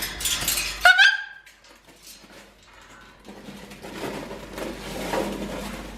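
A short pitched animal cry about a second in, rising then holding, after a second of scuffling noise, with a softer rustling haze in the second half.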